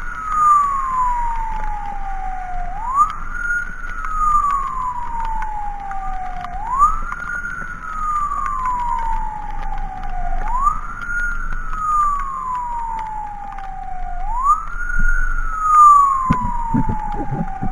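Emergency vehicle siren in a slow wail. Each cycle sweeps up quickly and glides slowly back down, repeating about every four seconds.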